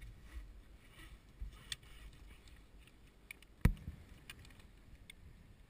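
One sharp knock about three and a half seconds in, with a brief ring after it, among faint scattered clicks.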